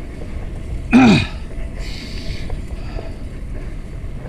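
Steady low wind rumble on the microphone from riding a fixed-gear bike, with one short, low vocal sound from the rider about a second in, dropping in pitch.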